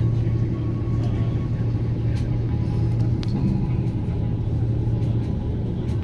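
Steady low hum of a catamaran passenger ferry's engines and machinery as the boat is being moored at the pier, with a few faint clicks.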